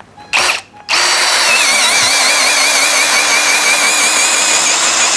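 Brushless cordless drill (DCK KDJZ03-13) in low gear driving a 25 mm auger bit into meranti wood. A short blip of the trigger comes first, then about a second in it runs steadily under load, its motor whine wavering as the bit bites. In gear 1 it bores through without stalling.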